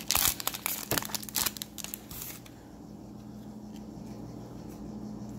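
Foil wrapper of a football trading-card pack being torn and crinkled as the cards are pulled out, a dense crackle for about the first two seconds. After that it goes quiet except for a faint steady low hum.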